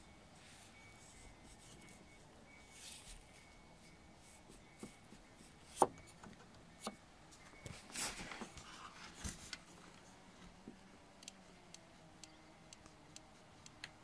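Faint, irregular clicks from a BMW seatbelt's upper anchor pivot as the anchor is moved by hand, a few louder clicks standing out among lighter ticks. The clicking comes from a loose washer inside the pivot, a thin spring washer that the owner thinks has lost its tension.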